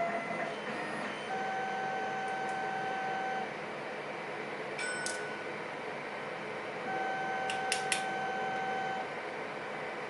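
Two long, steady electronic beeps, each about two seconds, one a few seconds after the other, with a few light clicks between and during them.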